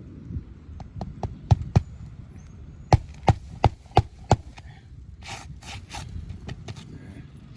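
Tool work on an asphalt shingle roof during a shingle repair: sharp knocks, a quick run of five at about three a second, then three short scraping strokes.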